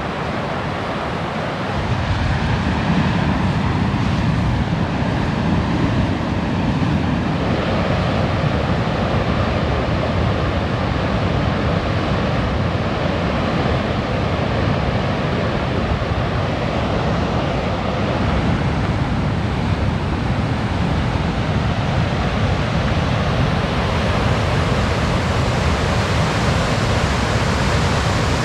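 Waterfall on the Skjálfandafljót river rushing as a steady wash of falling water, getting louder about two seconds in.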